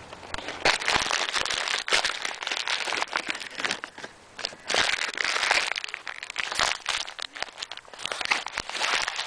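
Close, irregular crinkling and rustling in several bursts, with small crackling clicks.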